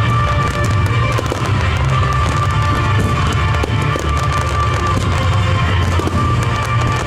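Fireworks crackling and popping in quick, dense succession, mixed with music.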